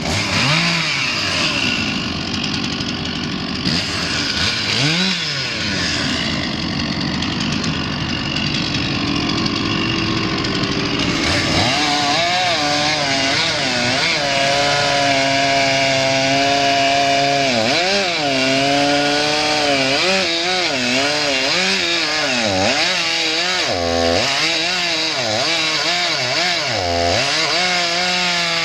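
Stihl MS 461 two-stroke chainsaw running at high revs, cutting through a large tree trunk. About halfway through, its pitch starts dipping and recovering over and over as the chain loads up in the cut.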